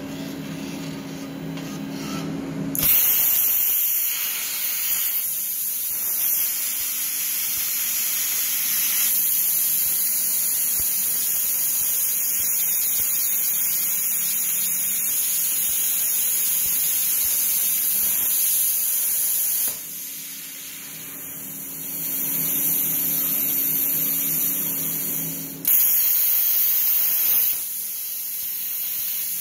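Air plasma cutter on a CNC table cutting steel plate: after a low hum, the arc starts about three seconds in with a loud, steady hiss. The hiss dips for a couple of seconds around twenty seconds in and is loudest again around twenty-six seconds.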